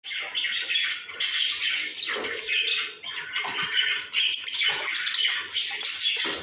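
Small pet parrots of the kind kept as love birds, chattering and squawking in a steady stream of short high chirps.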